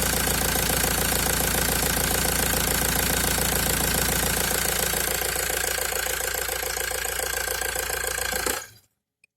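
Opel Y22DTR 2.2-litre four-cylinder turbodiesel running, with a steady rhythmic noise that is taken for an abnormal extraneous noise. The sound cuts off suddenly near the end.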